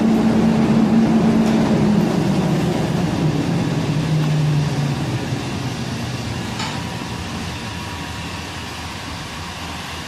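Handheld electric heat gun running, a steady blowing hum whose pitch drops a few seconds in and which grows gradually quieter.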